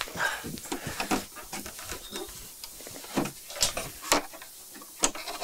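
Scattered rustling and handling noises with a few sharp clicks and knocks, irregularly spaced and growing sparser toward the end.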